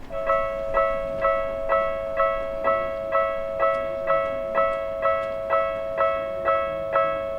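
Japanese railway level-crossing warning bell ringing: sharp pitched dings repeating about twice a second over a steady two-note tone, the signal that a train is approaching the crossing.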